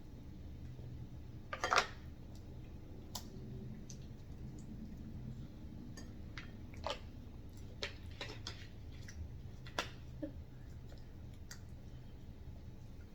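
Eating at a table: scattered small clicks and taps of food and utensils being handled, with chewing between them, over a low steady hum. The loudest click comes a little under two seconds in.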